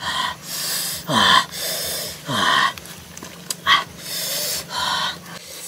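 A man's sharp, hissing breaths and short groans with a falling pitch, about eight in a row, made while eating chilli-hot grilled frog: a reaction to the chilli heat.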